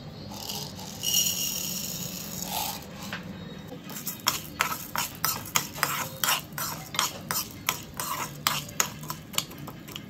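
Split lentils tipped into hot oil in a frying pan, then a ladle stirring them, scraping and knocking against the pan about three times a second.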